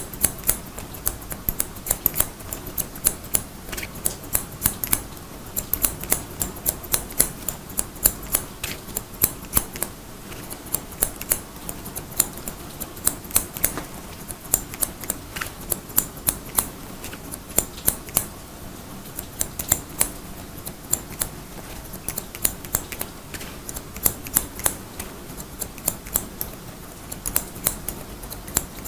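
Haircutting scissors snipping hair in quick runs of sharp clicks, several a second, with short pauses between runs, over a steady background of rain.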